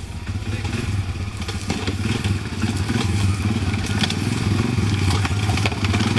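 Four-wheeler (ATV) engine running at low speed as the heavily loaded machine crawls over rough forest ground, growing slightly louder as it comes closer. Scattered sharp snaps and clicks of brush and branches under the tyres.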